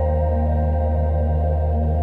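Slow ambient music: a deep steady drone under long sustained tones, with no beat.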